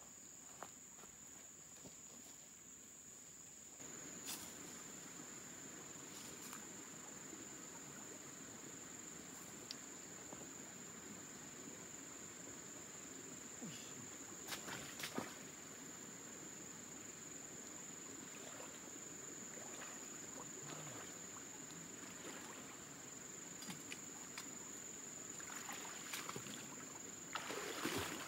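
Steady high-pitched drone of insects over the wash of a shallow creek, with scattered footsteps and twig snaps. Near the end comes louder splashing as someone wades through the water.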